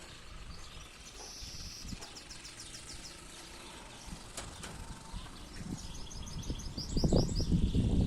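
Domestic canary singing rapid trilled phrases, the song of a male excited for mating. About seven seconds in, a loud low rumbling noise comes in and runs under the last trill.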